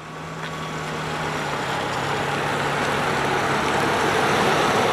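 A car running, its engine and road noise heard as a steady rushing sound that fades in, with a low steady hum in the first few seconds.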